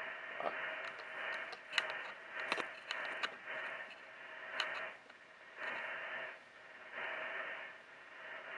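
Icom IC-7300 transceiver's receiver hiss from its speaker, swelling and sinking several times in a few surges as a hand moves toward and away from the radio, with a few sharp crackles of static about two to three seconds in and again near the middle.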